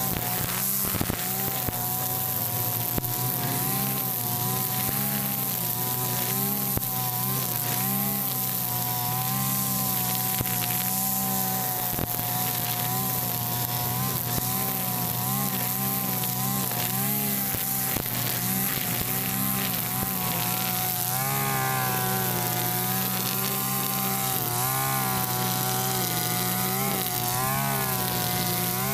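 Mitsubishi backpack brush cutter engine running fast, with its nylon-line trimmer head cutting grass. The engine pitch keeps wavering up and down as the line bites into the grass.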